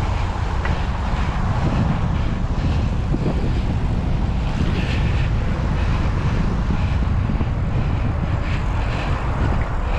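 Steady low wind rumble buffeting the microphone while riding a bicycle, mixed with the fat tyres rolling on pavement.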